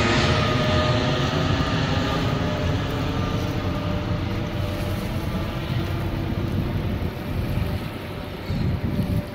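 Twin-engine jet airliner passing overhead: a steady engine roar with a faint whine in it, slowly fading as the plane flies away.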